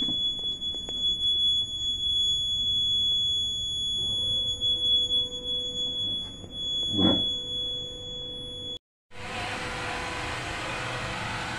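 Fire alarm control panel's buzzer sounding one steady high tone, its alert that a fire pump is running. After a cut about nine seconds in, pumps in a fire pump room running with a steady even noise.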